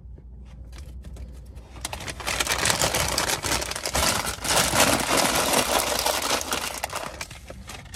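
A paper pastry bag crinkling and rustling as it is handled and folded closed, a dense crackle starting about two seconds in and dying away near the end.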